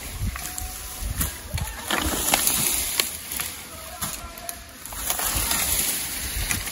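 Wind buffeting the microphone over rustling foliage, swelling twice, with a few sharp knocks and faint distant voices.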